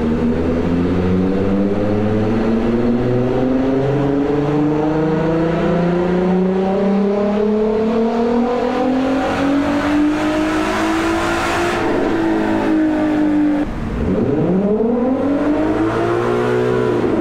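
Turbocharged 3.0-litre VR6 engine of a Golf 4 R32, heard from inside the cabin, pulling under load in one gear, its pitch climbing slowly and steadily for about twelve seconds. Near fourteen seconds the note drops sharply, then the revs rise and fall once more.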